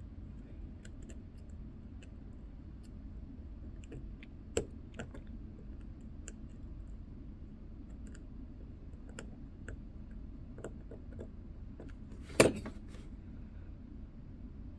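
Watch-repair tools clicking and tapping on small watch parts: scattered faint clicks over a low hum, a sharper tick about four and a half seconds in and a louder knock about twelve seconds in.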